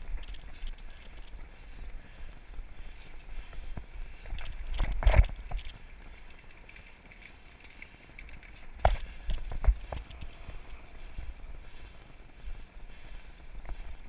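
Mountain bike ridden fast down a dirt singletrack, with tyre noise, rattling and wind buffeting the microphone. A loud clatter comes about five seconds in, and a couple of sharp thumps follow a little before ten seconds as the wheels hit bumps.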